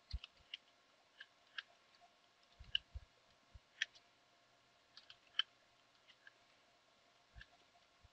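Faint, irregular keystrokes on a computer keyboard: single clicks and short runs of clicks with gaps between them.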